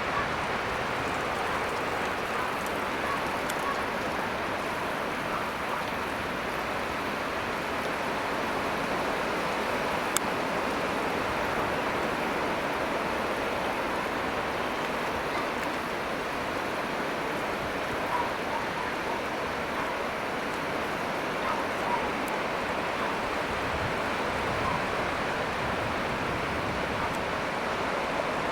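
Ocean surf breaking and washing onto the beach as a steady rushing wash, with one brief sharp click about ten seconds in.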